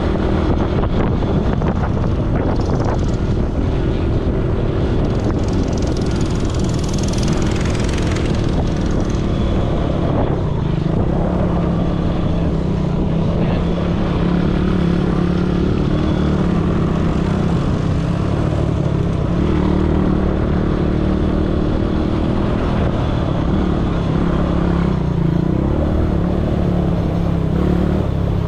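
ATV engine running steadily under way, its pitch wavering a little with the throttle.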